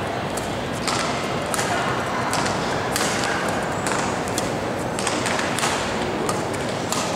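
Badminton rally: sharp strikes of rackets on the shuttlecock and players' footfalls on the court, coming every half second to a second, over a steady murmur of spectators in a large hall.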